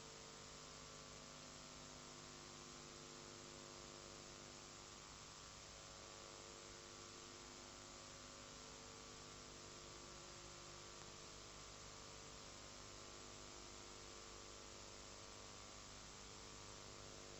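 Near silence: a steady electrical hum under a faint even hiss, with no other sound.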